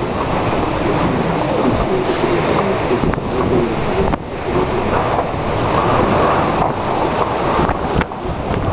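Typhoon-force wind blowing hard and buffeting the microphone in gusts, with a brief lull about four seconds in.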